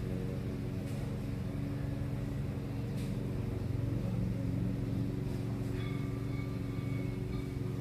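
Steady low hum of an engine or motor running at a constant speed. Near the end a faint, thin, high steady tone joins it for about two seconds.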